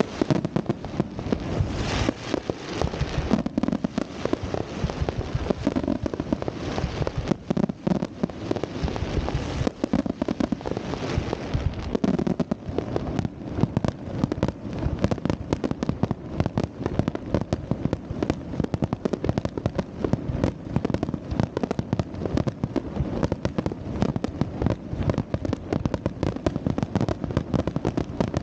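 Fireworks bursting and crackling in a dense, continuous barrage of closely spaced bangs.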